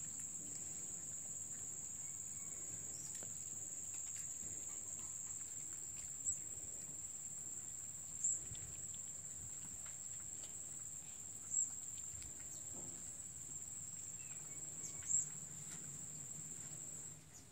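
A steady, high-pitched insect drone that cuts off near the end. Four short, sharp sounds stand out above it.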